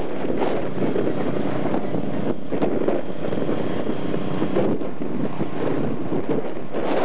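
Steady, gusty wind buffeting the camcorder microphone, with a vehicle engine running faintly behind it.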